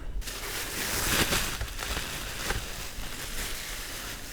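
Packaging being handled: rustling and crinkling, busiest in the first couple of seconds, as a boxed toy game is pulled out of its box.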